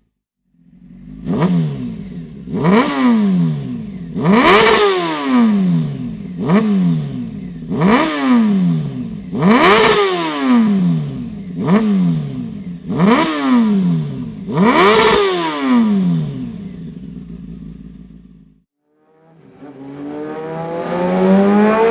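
Honda CBR 600 F3 inline-four revved through an aftermarket Dominator muffler: it idles, and the throttle is blipped about nine times, each rev rising sharply and falling back to idle. The engine stops after about 18 seconds. About a second later it is heard again, this time climbing steadily in revs.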